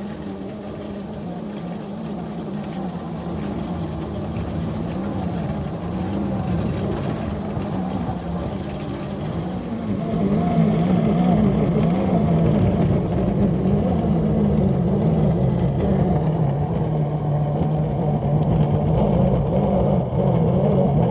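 Scale locomotive's traction motors droning under heavy load as it pushes a Russell snow plow into deep snow. The drone wavers in pitch and grows louder about ten seconds in as the motors strain harder.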